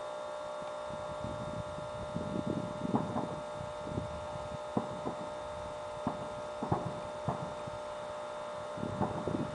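Fireworks bursting at a distance: scattered dull thuds and sharp pops, with a cluster near the start and another near the end, over a steady electronic hum.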